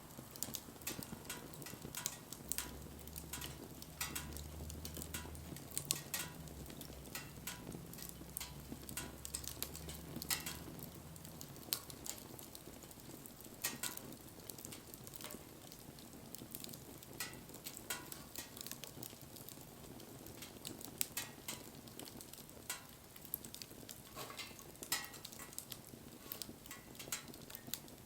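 Wood fire crackling, with irregular sharp pops and snaps over a soft hiss.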